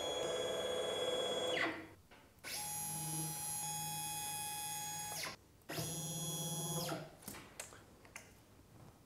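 Stepcraft 840 desktop CNC router's stepper motors whining steadily as the head is jogged across the bed, in three moves with short pauses between: the first about a second and a half, the second about three seconds, the third just over a second. A few faint clicks follow near the end.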